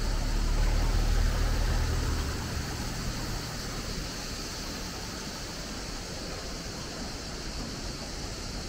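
A car running past close by, its engine a low rumble for the first two and a half seconds or so, over the steady rushing of the river.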